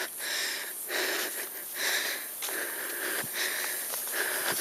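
A person breathing hard and fast, out of breath from hiking uphill at a fast pace: quick, rasping breaths about two a second.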